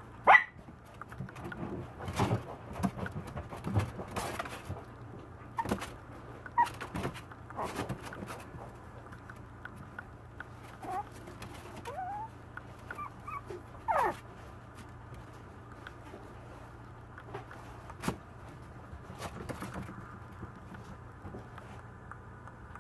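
Maltese puppy barking in short, separate barks, the loudest just after the start, with a few soft whines in the middle; it goes quieter near the end.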